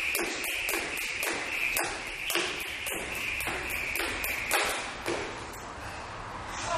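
A speed rope slapping a concrete floor in a fast, steady rhythm during double-unders, with a steady high whir. The slaps thin out and stop about five seconds in.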